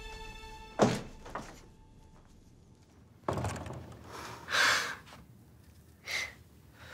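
Drama soundtrack music dying away, then a single sharp thud about a second in and a lighter knock after it. Soft rustling and breathy sounds follow in a quiet room.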